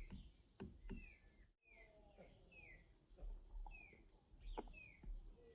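Faint bird chirping: short falling chirps repeated about once or twice a second, with a few soft clicks.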